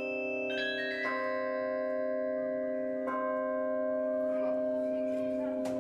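Bells of the Aarschot Peace Carillon, cast by Royal Eijsbouts, sounding a sustained chord that rings on while a few higher notes are struck over it, about half a second, one second and three seconds in.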